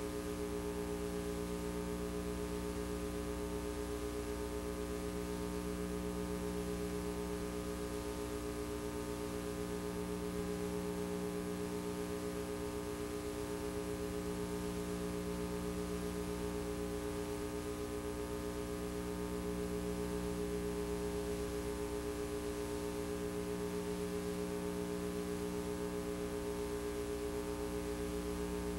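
Steady electrical hum and buzz, a set of unchanging tones over faint tape hiss, with no sound from the scene: the VHS tape carries no recorded audio.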